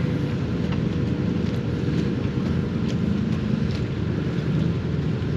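Side-by-side UTV engine running steadily, without revving.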